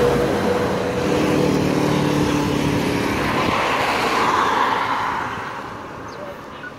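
Motor vehicles passing on a highway. One engine's hum fades away over the first three seconds, then another vehicle's road noise swells, passes about four to five seconds in, and dies down.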